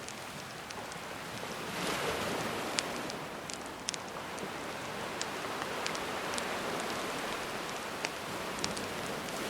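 Gentle sea waves washing in and drawing back, swelling about two seconds in and again near the middle. A wood fire crackles over them with sharp pops every second or so.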